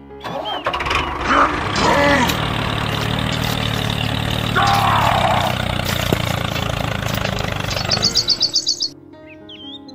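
A small engine running steadily, the engine sound of a model walking tractor, with birds chirping over it. Near the end comes a fast run of high chirps, then the engine cuts out.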